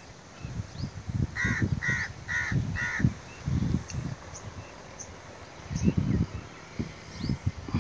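A crow caws four times in quick succession, harsh calls about half a second apart. Low muffled thumps come and go throughout, loudest about six seconds in, with faint small-bird chirps above.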